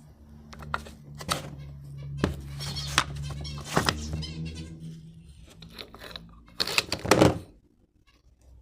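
Sharp clicks and knocks of parts being handled, with a loud rattling clatter a little before the end, over a steady low hum; it drops almost to silence at the very end.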